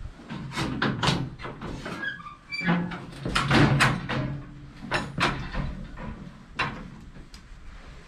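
Irregular knocks and metallic clanks from a steel sheep handling crate as a sheep shifts inside it and is worked on.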